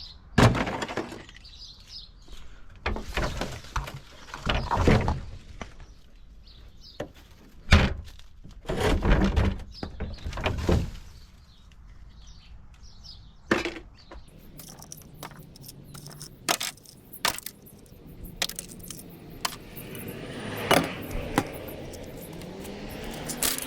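Plastic blender parts being tossed into a recycling bin: a string of clattering knocks and rattles, some single sharp hits and some longer jumbled rattles. Near the end a vehicle engine comes in, rising in pitch.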